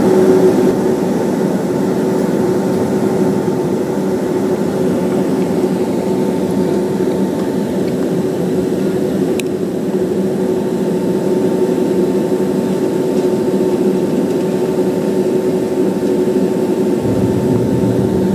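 Cabin noise inside a Boeing 767-300ER taxiing: the jet engines at idle and the air conditioning give a steady hum with several held tones. The low rumble grows a little near the end.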